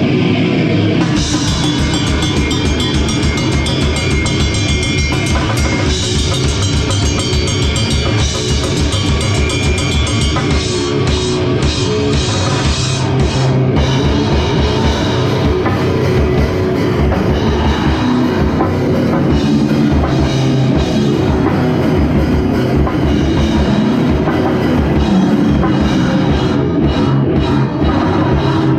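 Live gore grind band playing loud and fast, with the drum kit's bass drum hammering out rapid strokes many times a second under a dense wall of heavy band sound.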